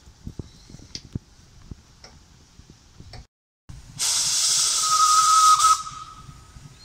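Narrow-gauge locomotive setting off with a loud rush of hiss lasting under two seconds, a steady whistle sounding over it about halfway through and lingering faintly after the hiss cuts off. Before that, faint irregular knocks from the moving train.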